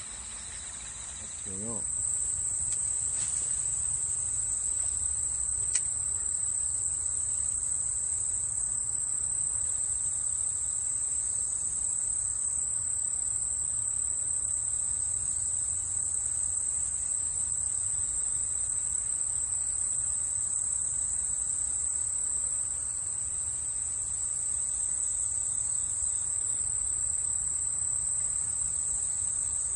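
A steady, high-pitched insect chorus from the summer grass, one unbroken shrill tone that grows louder about two seconds in. A single faint click about six seconds in.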